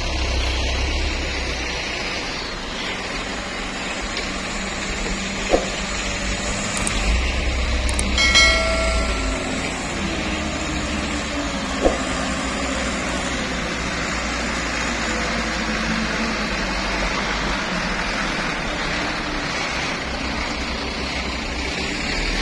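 Diesel engines of loaded palm-fruit dump trucks labouring up a soft muddy climb, a steady running rumble with noise over it. A brief pitched tone sounds about eight seconds in, and there are two sharp clicks.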